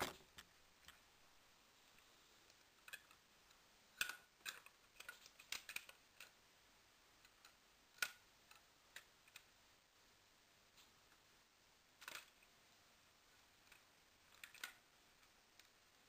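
Scattered sharp clicks and clacks of a Lego gun model being handled, coming singly or in short clusters several seconds apart.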